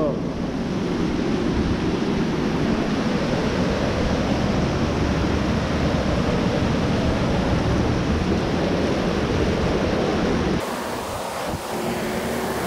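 Water rushing through a concrete dam spillway, a steady dense rush mixed with wind buffeting the microphone. About ten and a half seconds in, the sound drops abruptly to a quieter, thinner rush.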